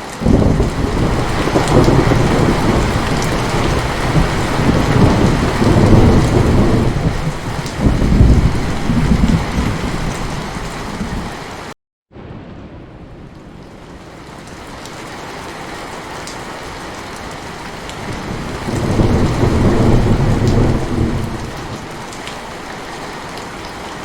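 Heavy rain falling with a steady hiss, under rolling thunder: a long low rumble that starts suddenly and runs for about twelve seconds, then a second rumble that swells and fades near the end. Halfway through, the sound cuts out completely for a split second and comes back quieter.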